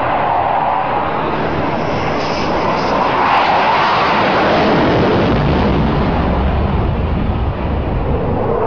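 Delta-wing fighter jet making a low, fast pass: loud, continuous jet engine noise that swells around the middle as the jet goes by, with a deep rumble building in the second half.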